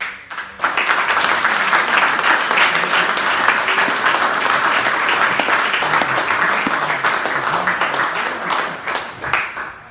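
Audience applauding: a dense round of clapping that builds within the first second, holds steady and tails off near the end.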